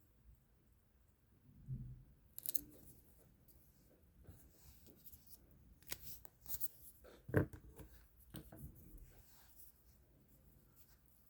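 Scattered light clicks, taps and scrapes of coloring tools being handled on paper, with the sharpest click about seven seconds in.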